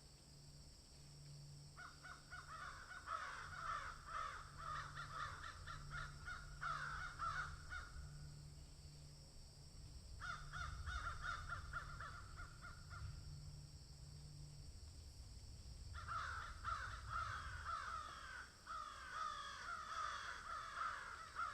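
Harsh, rapidly repeated animal calls in three long bouts, with short pauses between them.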